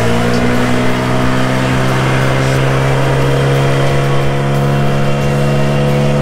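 Speedboat engine running hard; its pitch rises in the first second, then holds a steady note.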